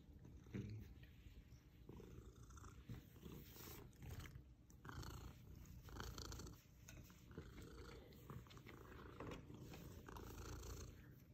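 Domestic cat purring faintly with a low steady rumble while it is being scratched, with soft rubbing sounds over it.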